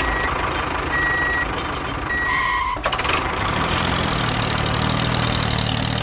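Tractor engine running at idle, with three short high beeps about a second apart, like a reversing alarm, in the first three seconds.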